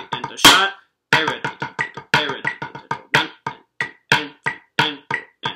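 Wooden drumsticks striking a drum practice pad, playing a snare rudiment exercise of accented singles, doubles and flams at 90 beats per minute in an uneven, syncopated rhythm, with one especially hard accent about half a second in.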